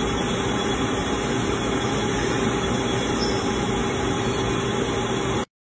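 CNC milling machine peck-drilling steel with a large twist drill: steady cutting and spindle noise with a faint steady hum. It breaks off abruptly near the end.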